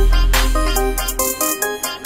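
Background electronic music with a heavy bass line and a steady beat of drums and cymbals; the bass drops out briefly near the end.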